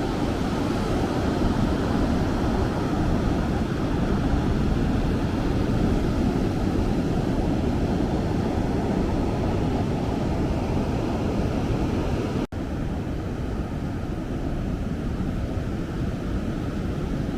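Steady noise of ocean surf mixed with wind on the microphone, heaviest in the low range, broken by a sudden brief dropout about twelve seconds in.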